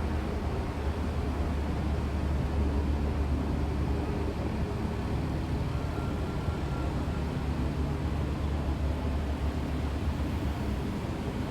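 Steady low rumble of city street ambience, with vehicle engine noise. A faint brief high tone sounds about halfway through.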